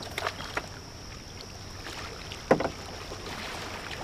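Water splashing and a few short knocks, the loudest about two and a half seconds in, over a steady high-pitched whine.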